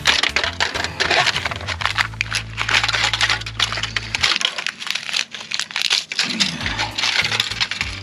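Thin aluminum tray crinkling and tearing as a pocket knife blade cuts and saws through it, with dense crackling throughout.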